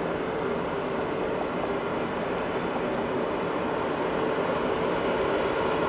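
Airbus A340-600's four Rolls-Royce Trent 500 turbofan engines running at taxi power as the airliner rolls along the taxiway: a steady hum with several held tones, growing a little louder near the end.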